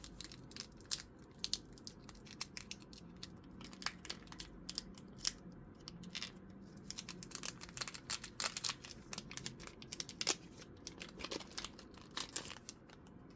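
A foil Pokémon trading-card booster pack being torn open and handled: irregular crinkling and tearing crackles of the wrapper, coming thick at times, then stopping just before the end.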